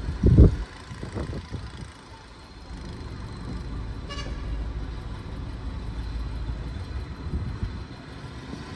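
Heavy diesel machinery running with a steady low rumble, a very loud low thump about half a second in, and a short high toot about four seconds in.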